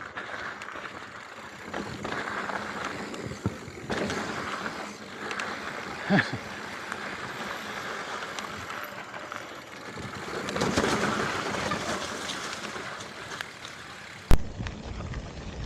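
Mountain bike riding on a trail: steady tyre and wind noise with scattered rattles and knocks. A louder knock comes about six seconds in, and a sharp click near the end, where the sound changes abruptly.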